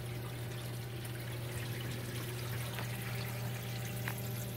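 Water running and trickling in a reef aquarium sump, over a steady low hum.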